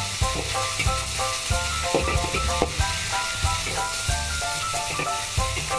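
Dry tofu, minced pork and preserved spinach sizzling steadily in a hot wok as a metal spatula stir-fries them, with background music playing over it.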